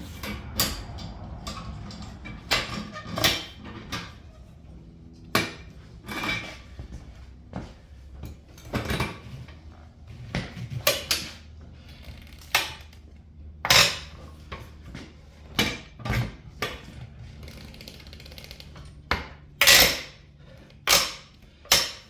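Manual bead breaker being worked around a UTV tire to break a stubborn bead: irregular metal clanks and knocks about once a second, with creaks in between. The loudest clanks come near the end.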